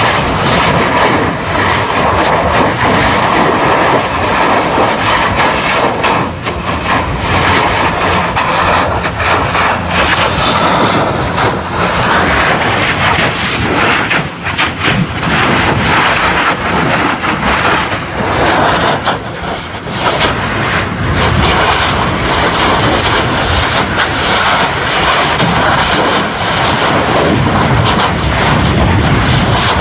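Lava fountains from a Kilauea East Rift Zone fissure eruption: a loud continuous rushing noise of gas and lava jetting from the vent, with irregular sharper bursts as spatter is thrown out.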